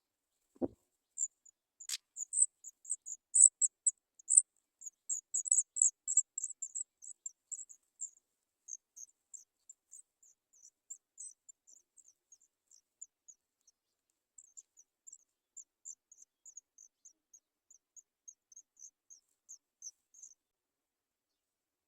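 Sooty chat nestlings begging: many short, very high-pitched cheeps in quick succession, loudest in the first several seconds and then thinning and fading. A dull thump comes just under a second in and a sharp click about 2 s in.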